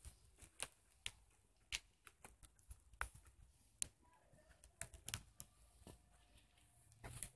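Faint, irregular clicks and light scuffs of steps on gritty asphalt, about one or two a second, with a louder scuff near the end.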